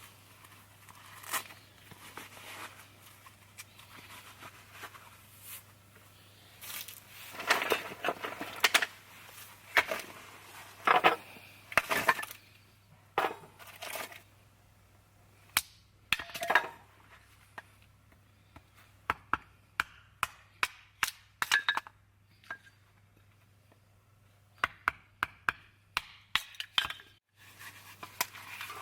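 Irregular knocks, clicks and clinks of things being handled, with a quick run of sharp taps about twenty seconds in.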